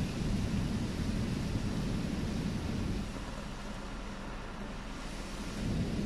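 Car-wash water spraying over the windshield and body of a car, heard from inside the cabin: a steady rushing noise with a deep rumble, easing a little about three seconds in and building again near the end.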